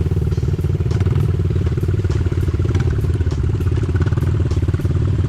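Pit bike engine running steadily at a fairly constant pitch while being ridden, heard up close.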